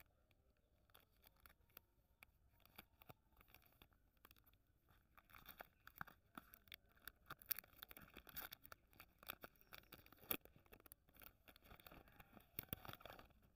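Faint crinkling and tearing of a KitKat's plastic candy wrapper as it is torn open at one end and peeled back off the foil-wrapped bar, a string of sharp crackles that thickens in the second half.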